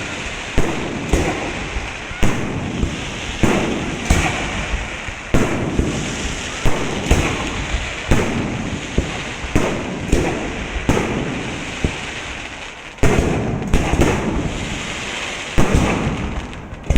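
Aerial fireworks display: a quick series of sharp shell bursts about once a second, with crackling in between, and a sudden louder burst about three-quarters of the way through.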